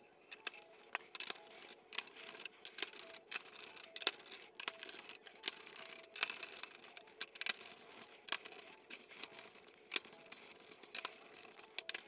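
Screwdriver turning a CPU cooler's mounting screws down into the threaded sockets of a motherboard back plate, a few twists at a time: faint, irregular small clicks and scrapes of metal on metal and plastic.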